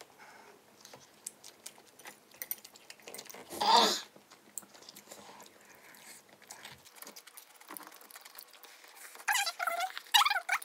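Close-up eating sounds: chewing and many small mouth and utensil clicks. There is a short loud rush of air about three and a half seconds in, and a run of louder noodle slurping near the end.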